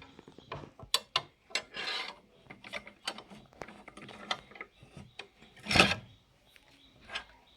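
Clicks, rattles and rubbing from handling a new Boda circular saw and its parts, with one louder scraping burst about six seconds in.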